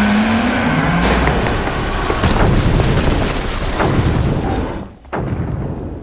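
Dramatic trailer-style soundtrack with deep booming hits. It dies away just before the end, then comes back with a sudden boom that fades again.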